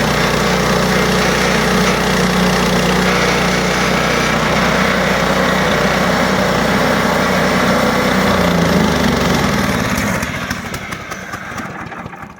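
Harbor Freight band sawmill's gasoline engine running steadily, then shut off about ten seconds in, its firing pulses slowing as it dies away.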